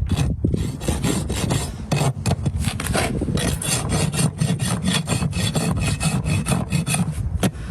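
A farrier's rasp filing a horse's hoof in repeated back-and-forth strokes, several a second.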